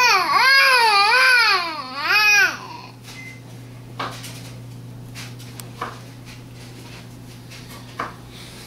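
Baby's loud, wavering vocalizing: a high-pitched 'aah' that rises and falls in pitch several times for about two and a half seconds. Then come a few faint knocks, over a steady low hum.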